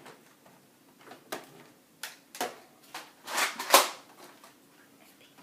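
Sharp plastic clicks and clacks of a Nerf Rough Cut pump-action blaster being handled and primed, with a louder rush of noise about three and a half seconds in.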